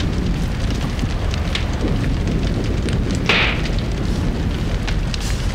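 A house fire crackling, with a steady low rumble underneath and scattered small pops; one sharper, louder crack about three seconds in.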